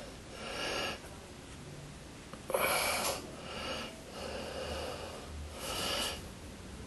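A person breathing close to the microphone: four or five audible breaths, the loudest just before the middle, beginning with a sharp click.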